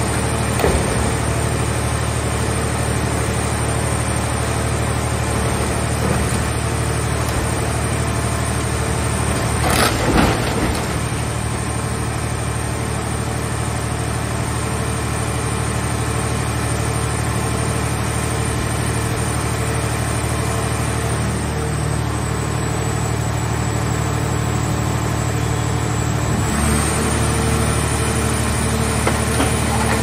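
Hydraulic scrap-car baler running with a steady machine drone while its press lid crushes a car body, with a short loud crunch of metal about ten seconds in. The drone's tone changes a few seconds before the end.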